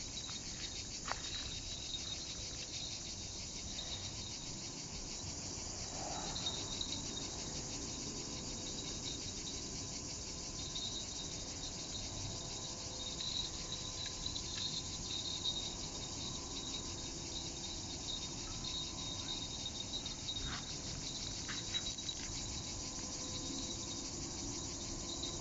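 Steady chorus of insects: a high, fast-pulsing buzz that runs without a break.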